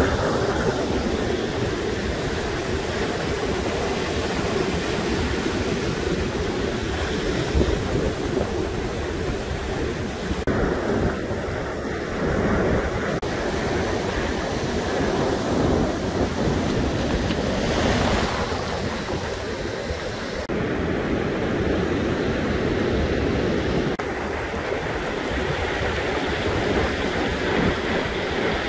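Ocean surf washing in over a sand and pebble beach, a steady rush of waves with wind buffeting the microphone. The rush shifts abruptly a few times.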